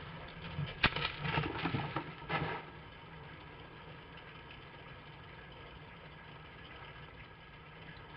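Brief harsh animal sounds, a sharp click and then about two seconds of rasping bursts, as a red fox lunges at a domestic cat. A steady low hum lies underneath throughout.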